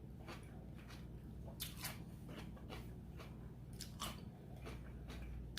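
Close-miked chewing of food, with irregular crisp crunches, a few sharper ones about a second and a half in and again about four seconds in.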